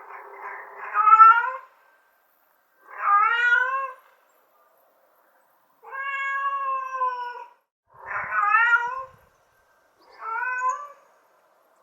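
Domestic cat meowing five times, each meow a separate drawn-out call with pauses between; the first is the loudest and the middle one is the longest and steadiest in pitch.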